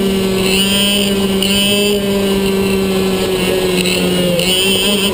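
IAME Leopard 125cc two-stroke kart engine held at high revs while lapping, heard onboard the kart. Its pitch stays mostly steady, sagging slightly over the middle and picking up again near the end.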